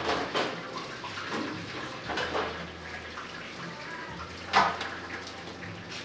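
Kitchen work sounds: a steady watery hiss with scattered clatters and knocks of cookware, the loudest a sharp knock about four and a half seconds in.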